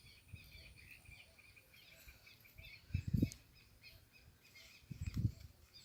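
Small birds chirping and calling in the background, with two brief low rumbles about three and five seconds in.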